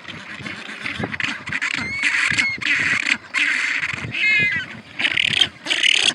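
Penguins calling: a run of harsh, squawking calls one after another, with a short whistled call about two seconds in and a quick stuttering call about four seconds in.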